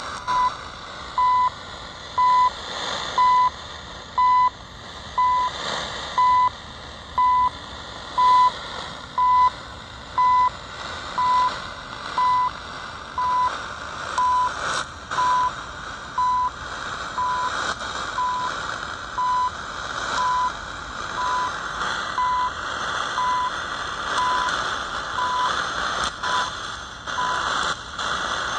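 CHU Canada time signal received on 3330 kHz shortwave through a Yewrich YR-RU8 portable radio's speaker: a short beep once every second over static hiss. The beeps fade weaker and the static grows stronger in the second half, with a few sharp static crackles.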